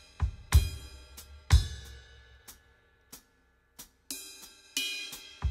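A drum kit playing on its own, soloed from a recorded mix and spread across the full stereo field: kick drum hits with cymbals crashing and ringing out, dropping to a few light taps in the middle before the kit comes back in near the end.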